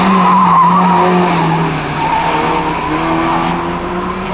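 BMW E30 cornering hard through a cone slalom, its tyres squealing in a warbling note over the engine's steady drone. The squeal is loudest in the first second or so, then fades while the engine keeps running.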